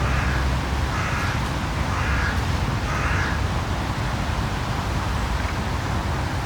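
A crow cawing four harsh calls about a second apart, over a steady low rumble of distant city traffic.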